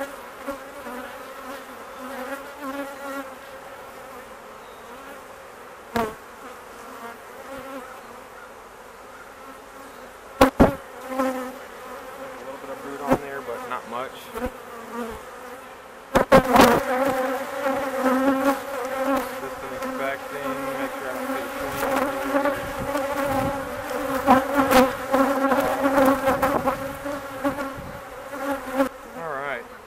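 Many honeybees flying around an opened hive, a steady buzzing hum that grows louder a little past the halfway mark. A few sharp knocks break in, the loudest cluster just before the hum swells.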